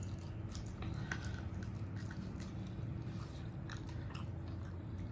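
Close-up eating sounds: a person chewing a mouthful of food, with scattered small wet clicks and smacks of the mouth.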